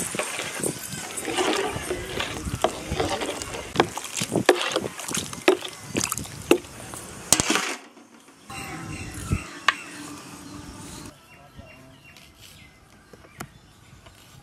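Chopped goat lungs in water being stirred in a large aluminium pot with a metal ladle: wet sloshing and squelching, with frequent clicks and scrapes of the ladle against the pot. It stops suddenly after about eight seconds.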